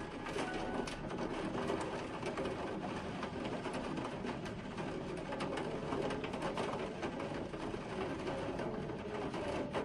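Heavy rain falling steadily: a dense hiss of drops with many small ticks.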